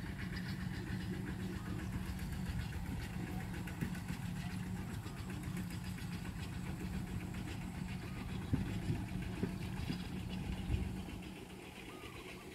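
A small engine running steadily with a low, even hum and a few knocks, turning quieter about a second before the end.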